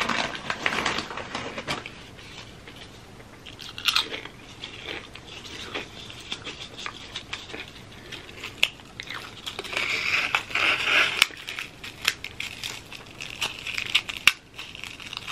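Close-up crunching and chewing of thin, crisp potato chips eaten with a soft cheesy dip: irregular sharp crunches and crackles, with a denser run of crunching about two-thirds of the way through.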